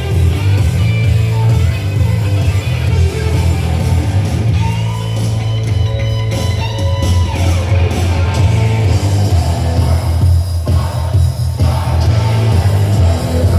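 Hard rock music with electric guitar, singing and heavy bass, played loud on a car's speakers.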